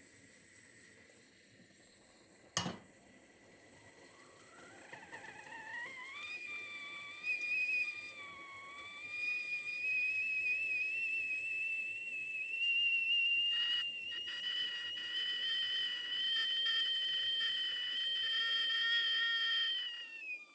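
Stovetop kettle whistling as the water comes to the boil: a sharp click, then the whistle starts a few seconds in, rising in pitch as it builds and settling into a steady, slowly climbing, gradually louder whistle, which turns two-toned partway through.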